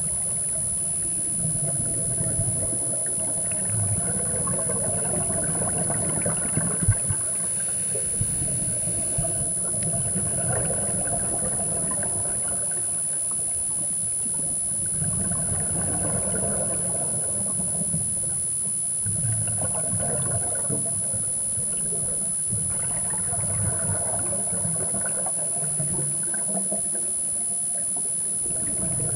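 Underwater scuba breathing, heard as bursts of bubbling, rushing exhalation from a regulator every four to five seconds, with a steady high-pitched whine throughout and a sharp knock about seven seconds in.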